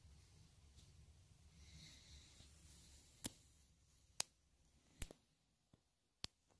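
Near silence with faint low room hum, then a series of five or six sharp, short clicks roughly a second apart in the second half, the first two loudest.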